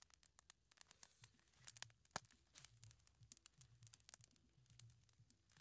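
Small wood fire crackling faintly, with irregular sharp pops and clicks, the loudest a little after two seconds in.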